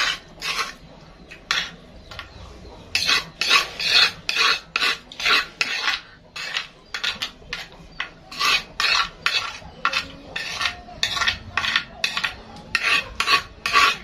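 Metal spoon scraping raw sambal out of a shallow cobek mortar, in repeated short, sharp scrapes: a few spaced ones at first, then about two a second from about three seconds in.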